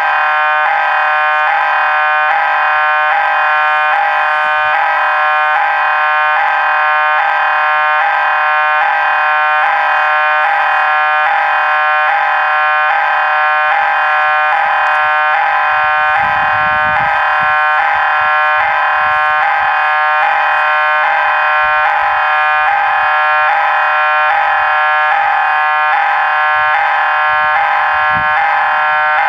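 Railway level-crossing warning bells ringing continuously and loudly while the crossing is active. A brief low rumble is heard about halfway through.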